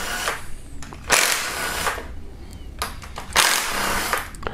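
Cordless power tool spinning camshaft bearing cap bolts loose in short runs, three times, as the caps are undone one step at a time in sequence.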